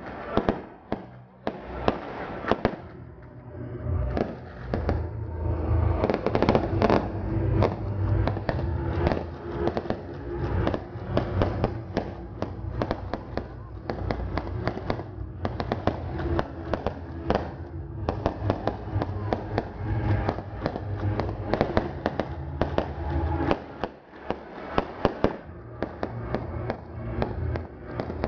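Aerial fireworks display: shells launching and bursting overhead in a dense, continuous run of sharp bangs, with crackling stars between them.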